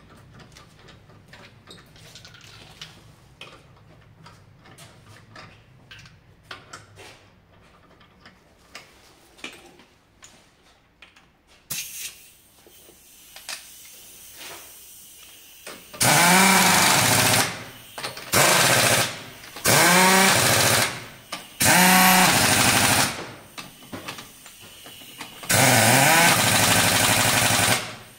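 Quiet scattered clicks and taps, then from about halfway an impact wrench run in five loud bursts of a second or so each. Its pitch sags and picks up again within each burst, as it does when it hammers against a tightening bolt.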